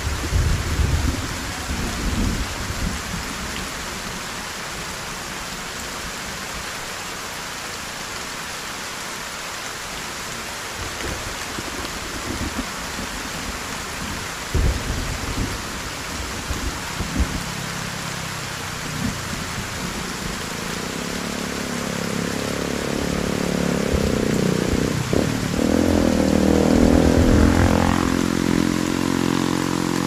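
Heavy rain falling steadily, with low rumbles near the start and again around the middle. From a little past halfway, a motor vehicle's engine approaches and grows louder, rising in pitch near the end.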